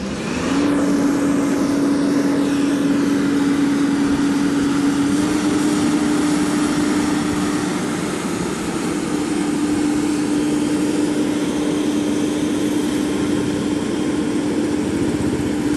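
JCB JS205 tracked excavator's diesel engine running steadily as it digs, with a constant hum over the engine noise that comes in about half a second in.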